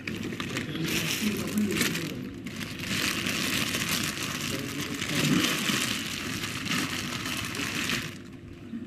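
A plastic bag rustling and crinkling steadily as food is handled, fading out near the end.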